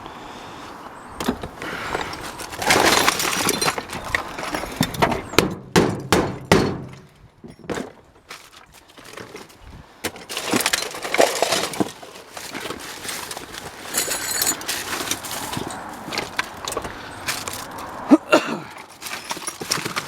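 Jumbled debris clattering, crunching and scraping as scrap is rummaged through and pulled out of a dumpster, with a quieter lull partway through and a sharp knock near the end.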